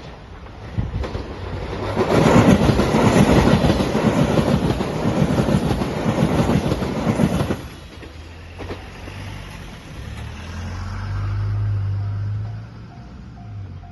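JR Shikoku Shiokaze limited express electric train passing at speed, its wheels clattering over the rail joints; the noise builds over the first two seconds and cuts off suddenly as the last car goes by, about seven and a half seconds in. A lower rumble follows, and a faint repeating tone starts near the end.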